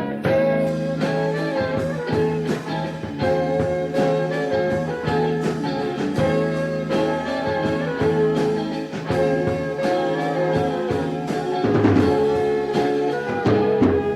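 A band playing music: an instrumental passage with held notes over a steady beat.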